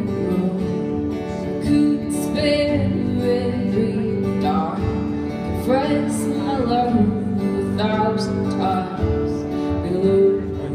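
Live folk song: a woman singing over guitar accompaniment, heard from among the audience in a club.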